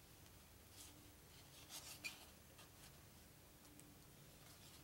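Faint rubbing and light ticks of cardboard game cards being slid and leafed through by hand on the deck, with a small cluster of scrapes about two seconds in.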